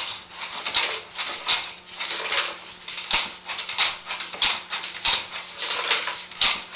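Sewer inspection camera and its push cable being fed through a drain line: irregular clicking, rattling and scraping, several times a second, over a faint steady hum.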